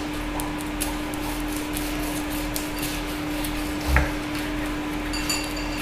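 Carving knife sawing through the crispy-skinned roast lamb breast on a wooden chopping board, with faint scrapes and small clicks. About four seconds in there is a knock as the blade meets the board. A steady low hum runs underneath.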